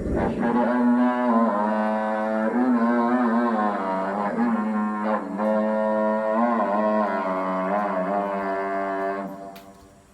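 Music: a held melodic line with wavering pitch over a steady low note. It fades out near the end.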